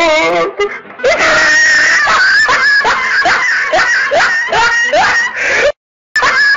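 Loud, high-pitched screaming laughter in rapid repeated rising whoops, breaking off for a moment near the end.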